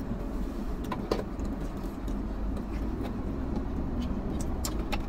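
Steady low rumble of a car cabin with the engine running, with a few faint clicks and crinkles from pizza boxes and food being handled.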